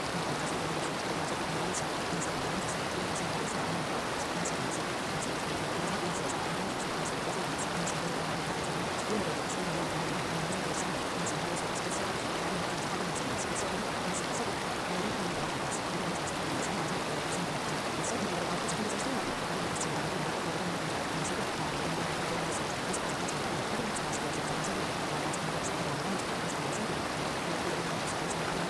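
Steady rain-like water noise serving as a subliminal's masking track: an even hiss with faint crackling drops scattered through it.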